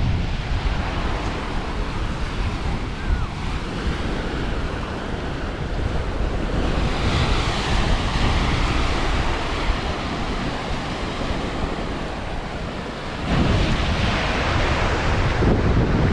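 Sea waves breaking and washing on the shore, with wind buffeting the microphone in a low rumble. The surf's hiss swells about seven seconds in and again near the end.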